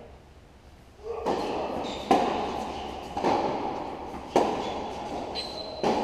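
Tennis ball being hit by rackets and bouncing on an indoor hard court. There is a sharp hit about once a second from about a second in, each echoing in the large hall.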